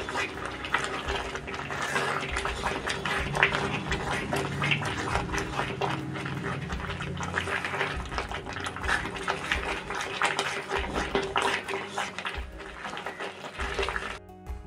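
Silicone spatula stirring wet semolina and milk in a metal pan on a low flame: a steady run of soft scraping and liquid sloshing as the halwa cooks. The sound drops out briefly near the end.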